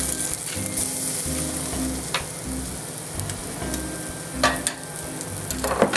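Shallots and freshly pressed garlic sizzling in butter in a frying pan, a steady hiss with a few sharp clicks of a utensil against the pan.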